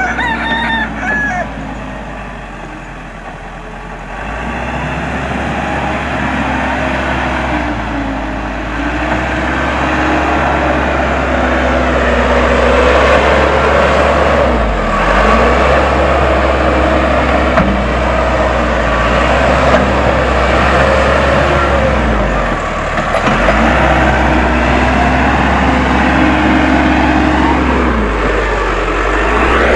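Case 580M backhoe loader's diesel engine working under load, its pitch dipping and recovering again and again as the hydraulics are worked to spread earth. It runs quieter at first and grows louder a few seconds in.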